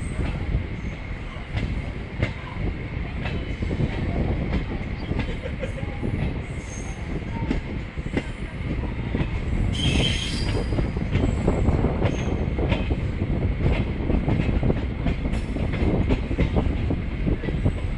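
EMU local train running on track: a steady rumble with wheel clicks over the rail joints, a steady high whine, and a brief squeal about ten seconds in.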